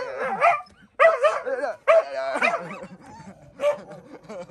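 Dogs yipping and whining as they scuffle with one another: a run of short calls bending up and down in pitch, quieter over the last second or so.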